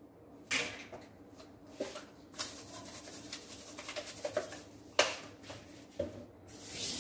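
Quiet kitchen handling: a few light clicks and taps as salt is added by hand to a bowl of beaten egg and crushed Doritos, then a short soft hiss near the end.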